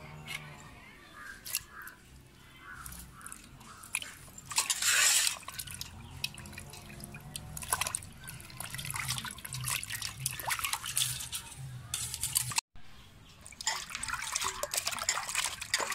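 Water splashing and sloshing in a steel pot as snake gourds are rubbed and rinsed by hand, in irregular bursts with the loudest splash about five seconds in.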